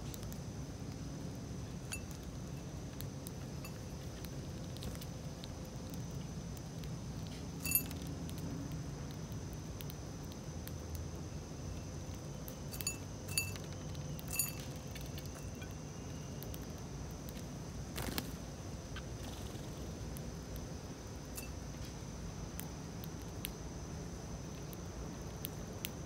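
House sparrows pecking seed from a ceramic bowl, their beaks clicking and clinking against the bowl: scattered soft taps, with a few sharp ringing clinks about 8 s in and three more around 13 to 14 seconds.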